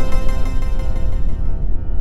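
MIDI piano music rendered through the Piano Maganda soundfont with a flanger added: a dense cluster of many notes dies away over about a second and a half, leaving a few held notes over a loud, rough low rumble.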